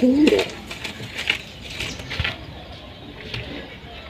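A fantail pigeon cooing, its call ending about half a second in, followed by a few soft scattered taps and wing flutters as the pigeons move about.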